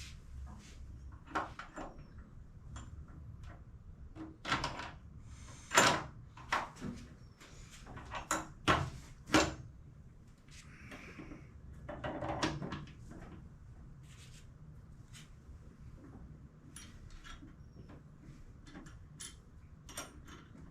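Metal clanks, clicks and knocks of hand tools and steel suspension parts being handled and fitted, in irregular bursts with the sharpest knocks in the middle, plus a couple of short scrapes.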